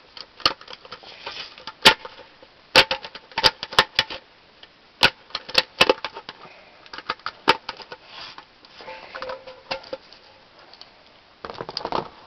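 Whitney No. 5 Jr. hand sheet-metal punch working through a thin tin pie plate: a run of irregular sharp metallic clicks and snaps, some with a short tinny ring from the plate.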